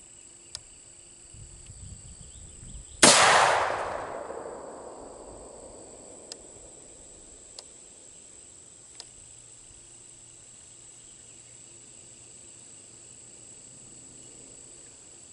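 A single 5.56 rifle shot from an ATI Omni Hybrid AR-15, a sharp crack about three seconds in that echoes and dies away over a second or so, followed by a few faint clicks. Crickets keep up a steady high buzz underneath.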